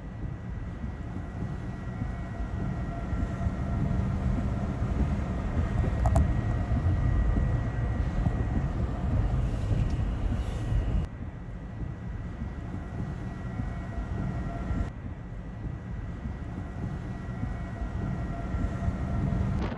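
Low, steady roar of a large tornado, a rumble likened to a freight train, with a faint steady high tone over it. The level drops abruptly about eleven seconds in and picks up again a few seconds later.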